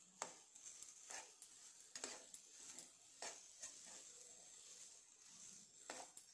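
Steel spoon mashing and stirring boiled potato in a nonstick pan, knocking against the pan about five times, the strikes roughly a second apart, with a soft squish of the potato between them.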